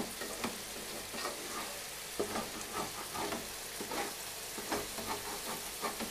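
Curry masala of onions, tomatoes and chillies sizzling in a metal pot on a gas stove while a spoon stirs it, the spoon scraping and knocking against the pot in short, irregular clicks over a steady hiss.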